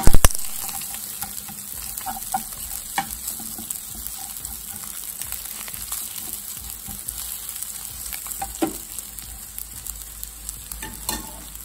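Fried rice sizzling in a hot kuali (wok) while a slotted metal spatula stirs and scrapes it, with small scattered clicks from the spatula. A loud knock comes at the very start.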